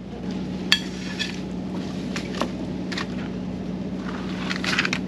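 Spatula and fork clinking and scraping against a dish as baked fish is served: a few separate sharp clinks, then a quick run of them near the end. A steady low hum runs underneath.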